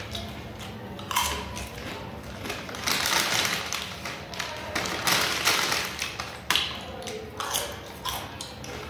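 Potato chips crunching as they are bitten and chewed, in short crisp bursts about a second apart.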